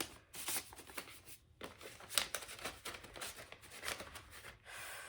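Paper and cardboard rustling and scraping: a vinyl record in its paper inner sleeve being slid back into its cardboard album jacket, with many small clicks and rubs and a short steady slide near the end.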